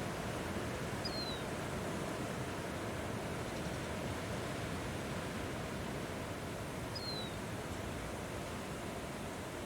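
Steady rush of strong wind, with two short, high chirps that fall in pitch, one about a second in and one about seven seconds in.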